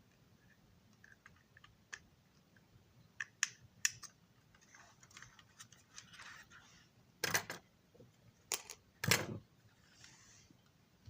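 Scattered light clicks and taps of small objects being handled, with a soft rustle in the middle and a few louder knocks about seven to nine seconds in.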